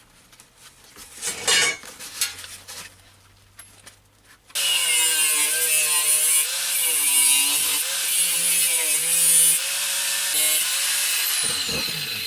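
Angle grinder working on steel: a continuous hissing grind with a wavering motor tone underneath, starting abruptly about four and a half seconds in after a few quiet handling noises.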